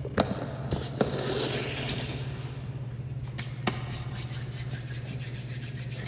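Hands rubbing together in quick back-and-forth strokes, palms slick with grease. Before that come a few sharp clicks.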